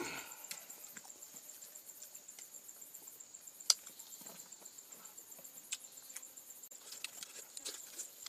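Close-up eating sounds of someone eating rice and fish by hand: chewing and lip smacks with many small wet clicks, and one sharper click a little before halfway.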